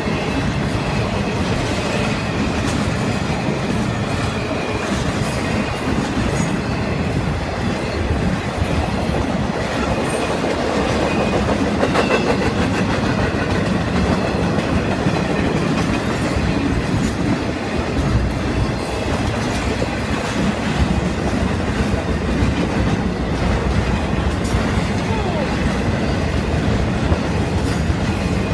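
Norfolk Southern intermodal freight cars rolling steadily past: a continuous rumble and clatter of steel wheels on the rails, with a faint high squeal at times.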